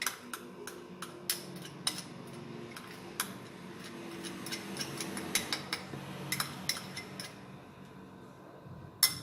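A kitchen utensil clinking and scraping against a mixing bowl in irregular clicks as dough ingredients are stirred together, ending in one louder knock near the end.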